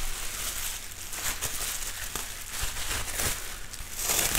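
Plastic bubble wrap crinkling and rustling with scattered small crackles as hands pull and unfold it to unwrap a display panel, a little louder near the end.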